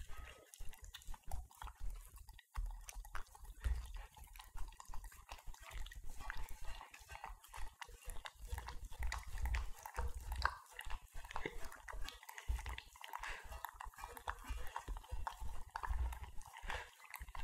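Two Italian greyhounds eating a wet raw minced-beef mix from stainless steel bowls, licking and smacking at the metal as the bowls empty. A steady run of irregular wet clicks and slurps, with dull low knocks now and then.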